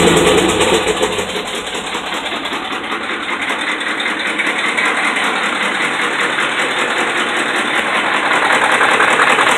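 Dodge Ram's 5.7 Hemi V8 dropping back from a rev to idle in the first second, then idling with a rapid knocking that grows louder near the end. The knock comes from worn connecting rod and crankshaft bearings.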